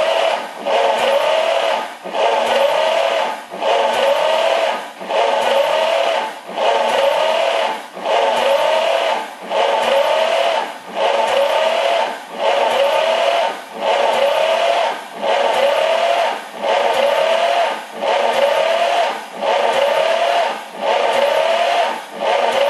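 Starter motor cranking a Studebaker 289 V8 with its spark plugs out, in a steady, even rhythm, with a whine that rises over and over. The engine is being turned over cold for a compression test on one cylinder.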